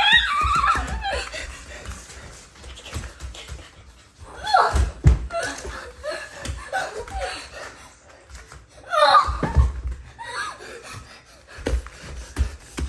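Children squealing and laughing in three bursts during rough play with a puppy, with low thumps and scuffling between.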